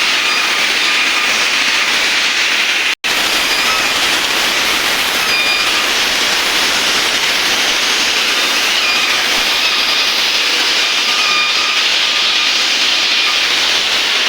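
CNC machine cutting steel: a loud, steady hissing noise with faint, brief whistling tones now and then. The sound drops out for an instant about three seconds in.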